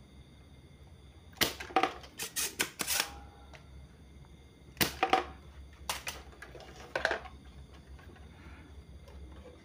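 Spring-loaded desoldering pump being cocked and fired to suck solder off a capacitor's leads on a circuit board: a quick run of sharp snaps and clicks from about a second and a half to three seconds in, then a few more around five to seven seconds in.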